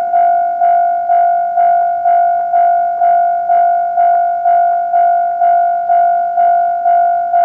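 Japanese railway level-crossing warning alarm ringing: a single bell-like tone struck about twice a second, each strike fading before the next. It signals that a train is approaching.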